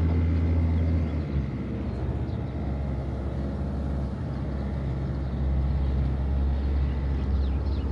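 Boat engine running steadily with a low drone. It eases off about a second in and settles back to an even hum for the last few seconds.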